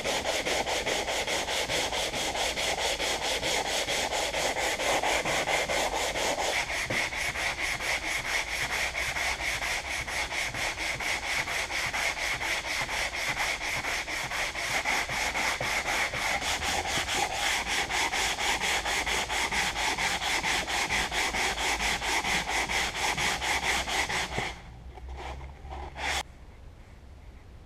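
Hand sanding body filler with sandpaper, in quick, even back-and-forth rubbing strokes. The filler is dry enough to sand but still a little tacky. The sanding stops about three seconds before the end, and one short stroke comes about a second after that.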